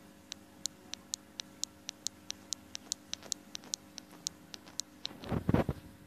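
Rapid, evenly spaced sharp clicking, about four clicks a second, stopping about five seconds in, followed by a short louder low rumble.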